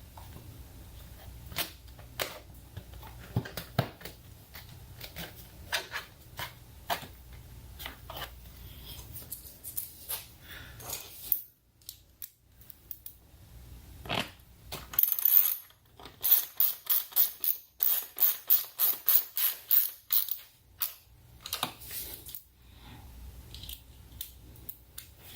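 Hands working a motorcycle's plastic cover and its fasteners back into place, with scattered sharp clicks and taps. Later comes a fast run of sharp clicks, about two or three a second, for several seconds.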